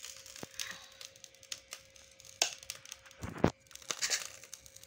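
Clicks, knocks and light crackling from handling an open electric sandwich maker with freshly cooked waffles in its hot plates, with two sharper knocks about two and a half and three and a half seconds in.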